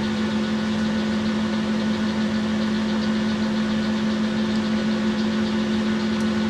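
Boxford centre lathe running steadily at speed just after start-up, a loud, even hum with a strong low tone. The spindle is turning an aluminium workpiece that is being hand-polished with a cloth.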